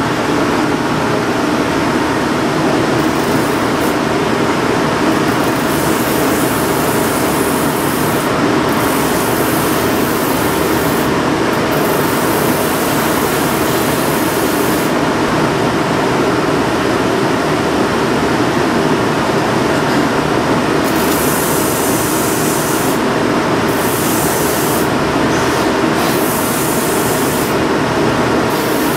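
A shoe repair finishing machine running steadily, its row of spinning sanding and trimming wheels turning on one shaft. A rubber sole's edge is pressed against a wheel again and again, adding bursts of hissing grinding that last a second or a few seconds each as the edge is trimmed.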